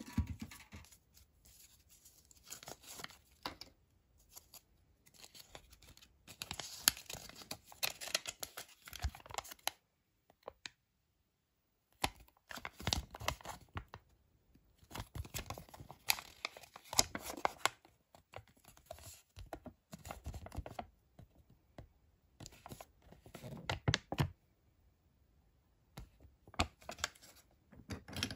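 Paper and thin wrapping rustling and crinkling under the hands, with small sharp crackles and clicks, as a folded toy leaflet is handled and opened. It comes in irregular bouts, with a silent pause about a third of the way in.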